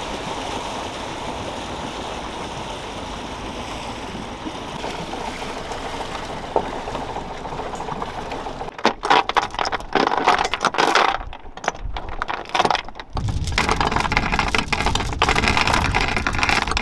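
Sailboat under engine: a steady rush of engine, wind and water noise. After about nine seconds it turns uneven and gusty, and it gets louder near the end.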